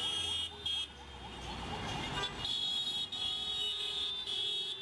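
Busy street traffic ambience: a low rumble of vehicles with horns sounding on and off.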